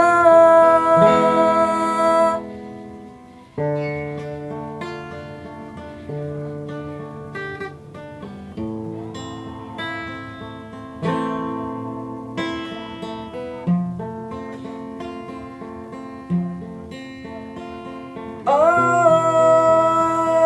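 Acoustic guitar plucking an instrumental break of single decaying notes. A voice holds the last sung note for about two seconds at the start, and a new long held note comes in near the end.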